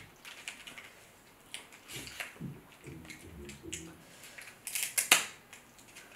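Kitchen shears snipping through a cooked king crab leg shell: a series of crisp cracks and clicks, the loudest pair about five seconds in.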